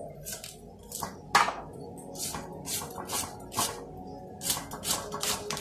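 Fresh okra pods being cut into pieces by hand with a knife: a series of short, crisp snaps, about two a second, in an irregular rhythm.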